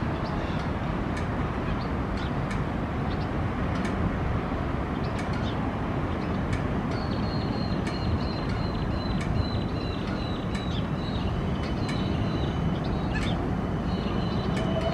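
Steady urban traffic rumble with many short, sharp clicks scattered through it. About halfway in, a thin high whine starts and holds for several seconds, falling slightly in pitch.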